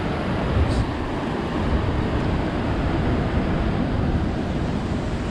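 Wind rumbling on the microphone over the steady wash of surf against the rocks.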